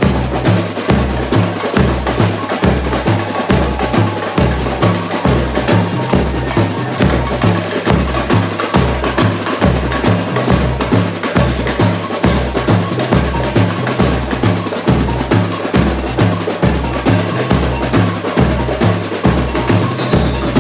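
Samba bateria drumming at full volume. Surdo bass drums keep a steady beat about twice a second, under dense snare and higher hand percussion.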